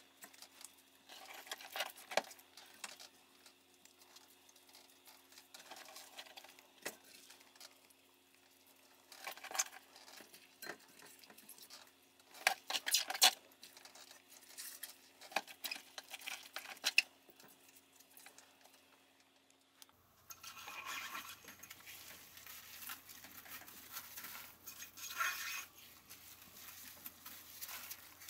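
Salted napa cabbage quarters being laid into a plastic pickling bucket by gloved hands: soft irregular rustles, pats and knocks of leaves against the bucket, with a faint steady hum behind.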